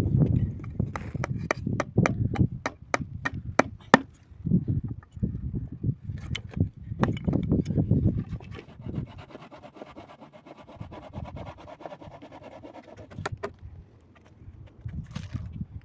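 A quick run of sharp knocks, about three or four a second, over low thumps of handling, then a softer steady scraping and a few more sharp knocks.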